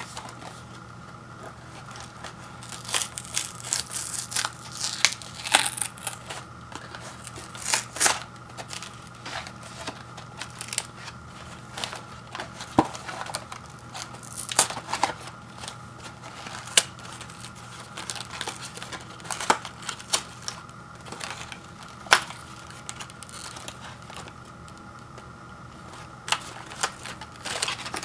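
A thin cardboard granola-bar box being torn open by hand: its glued end flap is ripped and the paperboard creased, in scattered sharp tears, crackles and clicks, with quieter gaps near the start and toward the end.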